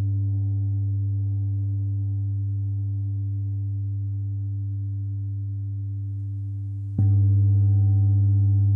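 Gong ringing with a deep, steady hum and a few higher overtones, slowly dying away. It is struck again about seven seconds in and swells back up louder.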